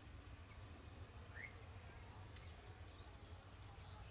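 Near silence of open countryside: a steady faint low rumble with a few brief, faint bird chirps.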